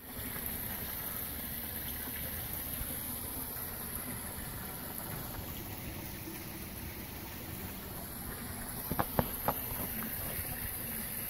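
Steady background noise with a high hiss, broken by a few short sharp clicks about nine seconds in.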